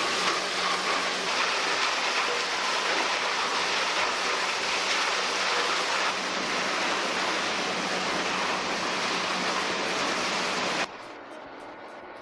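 Steady, loud rushing noise with a faint continuous hum from an industrial wood-processing machine running. The sound drops abruptly to a much quieter background near the end.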